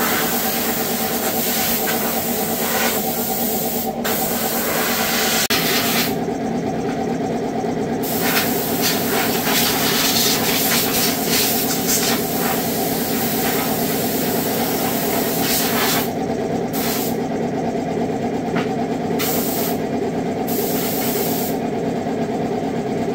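Hissing blasts, switched on and off several times, aimed at a brush cutter's engine, over a steady motor drone.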